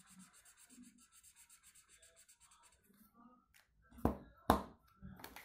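Felt-tip marker scrubbing on paper in quick, even back-and-forth strokes as small circles are coloured in. About four seconds in come two sharp knocks, half a second apart, much louder than the colouring, then a couple of lighter ones.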